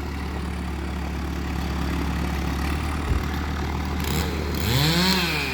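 An engine idling with a steady low hum. Near the end a tone rises and then falls in pitch.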